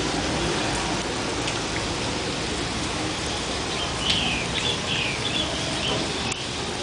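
Heavy tropical rain falling steadily. About halfway through, a bird calls in a quick run of short, high notes over the rain.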